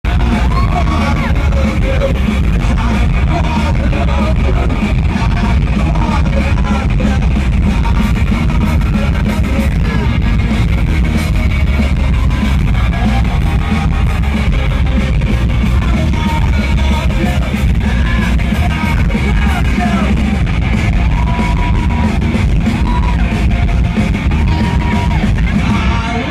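A live rock band and singer playing loudly through an arena sound system, with electric guitar, heavy bass and drums under the vocals and yelling voices. The low end is dense and boomy, as heard from close to the stage.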